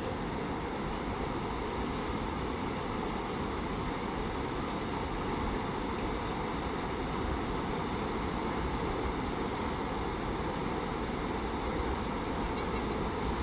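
Floodwater rushing through the open spillway gates of Douglas Dam: a steady, even roar of falling water.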